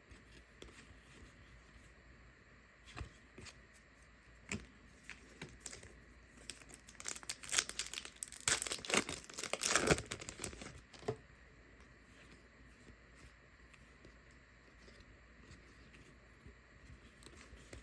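Trading card pack wrapper crinkling and tearing open by hand, a dense run of crackling in the middle after a few scattered clicks, then quiet handling.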